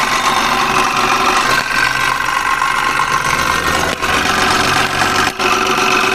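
Suzuki Bolan's 796cc three-cylinder engine idling with a steady high-pitched whine from inside the timing-belt cover: the noise of a worn timing-belt tensioner bearing.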